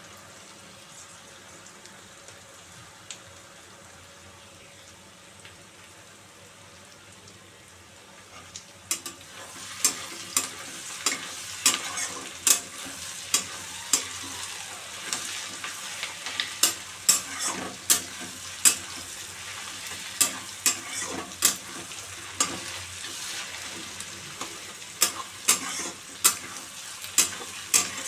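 Sliced onions frying in oil in a kadai with a steady sizzle. About nine seconds in, a steel spatula starts stirring them, scraping and clinking against the pan about one to two times a second.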